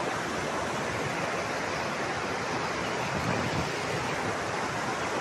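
Floodwater rushing steadily, a continuous even wash of fast-flowing water.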